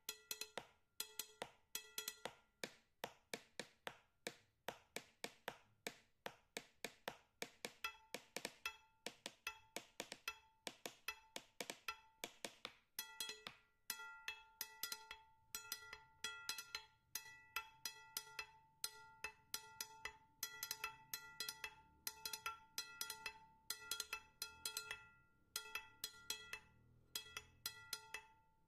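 Quiet background music built on quick, evenly repeating wood-block-like clicks and a repeating bell-like note. About halfway through, a held note and a low hum join the beat.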